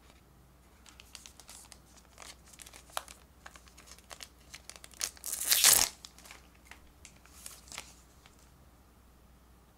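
Pokémon card booster pack wrapper crinkling in the hands, torn open in one loud rip about five seconds in, with more crinkling of the wrapper afterwards.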